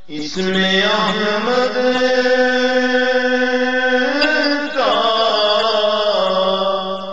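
A man singing an Urdu naat in a long drawn-out line. The voice comes in at the start and holds a steady note, wavers in an ornament about four seconds in, and then slides down to a lower note.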